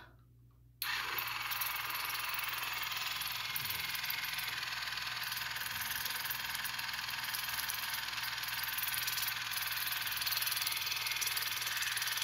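Cordless Waterpik water flosser running steadily, its pulsing pump buzzing and the water jet spraying inside the mouth. It switches on about a second in and shuts off abruptly at the very end.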